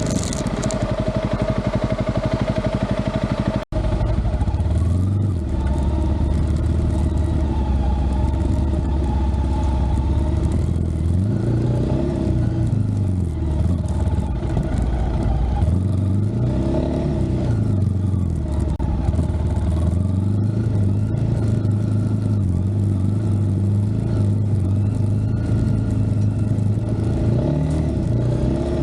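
A vehicle engine running, its revs rising and falling several times, with a brief break in the sound near four seconds in.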